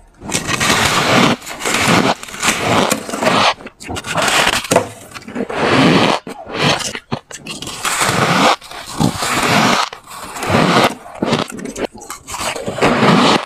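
Chunks of soft freezer frost being bitten and chewed close to the microphone: a run of crunching bites and chews with short pauses between them.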